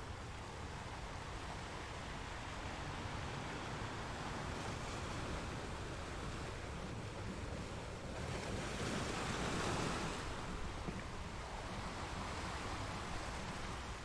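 Ocean surf: a steady wash of waves, with one wave building and breaking louder about eight seconds in before settling back. Wind runs underneath as a low rumble.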